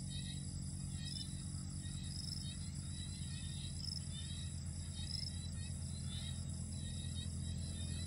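Night insect chorus: steady high chirping with short, higher chirps about once a second, over a constant low hum.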